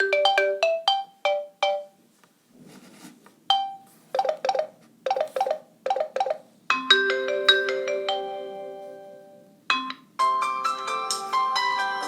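Samsung Galaxy J1 mini stock ringtones playing, bright electronic mallet-like melodies. Quick short notes in the first two seconds, then repeated chimed chords, a held chord fading away, and a new, busier tune starting near the end.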